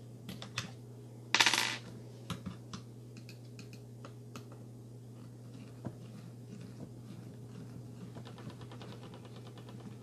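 Small clicks and taps of a hex driver and hand on the plastic chassis of an RC crawler, with one louder short clatter about a second and a half in. Near the end comes a fast fine ticking as the driver turns a screw out of the skid plate, over a steady low hum.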